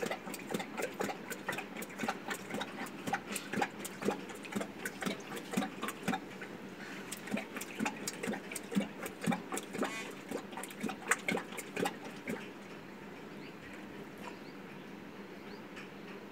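An Asiatic lion lapping water from a stone tank: quick wet laps at about three a second, stopping a few seconds before the end as it lifts its head.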